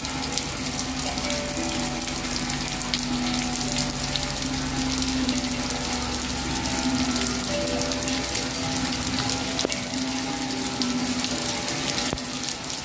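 Steel tongue drum (rain drum) played by falling rain: drops striking its tongues set off ringing notes that hang and overlap, over the steady hiss of rain.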